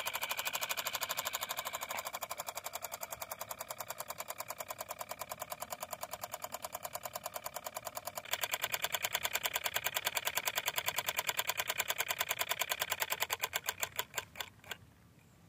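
Miniature walking-tractor model's motor running with a rapid, even ticking chug, louder about eight seconds in. Near the end the beats slow to a few spaced knocks and stop as the engine winds down.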